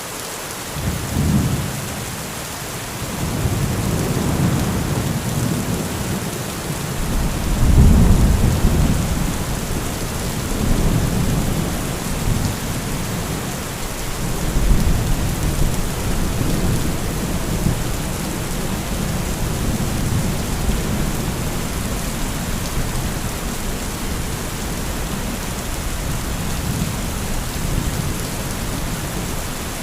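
Heavy rain falling steadily, with rolling thunder. A first rumble comes about a second in, and louder peaks come near 8 and 15 seconds before the thunder settles into a low continuous grumble.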